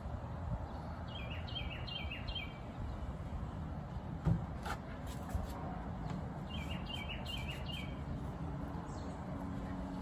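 A songbird singing two short phrases, each a quick run of about five repeated chirps, over a steady low background rumble. A single thump and a few light clicks come in the middle.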